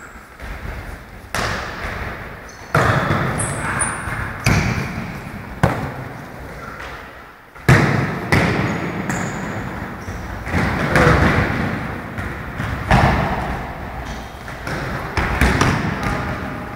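A futsal ball being kicked and bouncing off the floor and walls of a sports hall: a dozen or so sharp thuds, each with a long echo off the hall, and a few brief high squeaks of sneakers on the court.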